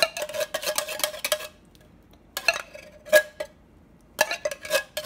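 Wire whisk clinking and scraping against the sides and bottom of a metal saucepan as thick corn pudding batter is stirred. It goes in quick runs of strokes, each with a faint metallic ring from the pot, broken by a pause in the middle and picking up again near the end.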